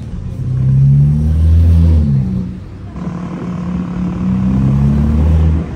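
BMW G80 M3's twin-turbo straight-six engine and exhaust revving up twice. The pitch climbs for about a second and a half, falls back, then climbs again for over two seconds.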